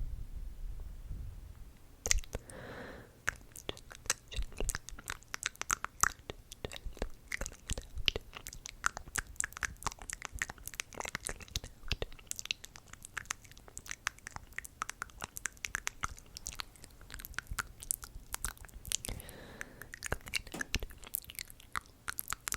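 Close-miked ASMR mouth sounds: a dense, irregular run of wet clicks and smacks. It starts about two seconds in, after a low rumble fades.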